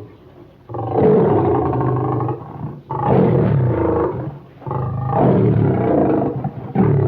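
Monster roar sound effects of a demon bear-dragon creature: three long, deep growling roars in a row with short pauses, and a fourth starting near the end.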